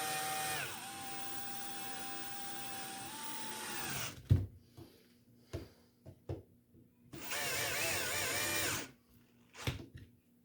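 A small power tool's electric motor running steadily for about four seconds, then a few clicks and knocks, then a second, shorter run whose pitch wavers.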